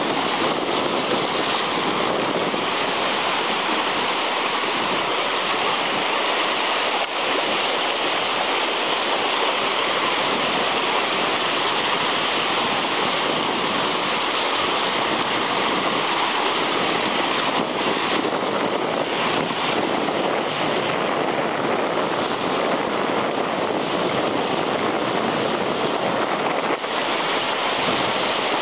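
Fast, shallow river rushing over boulders and rapids: a steady, loud rush of water with no breaks.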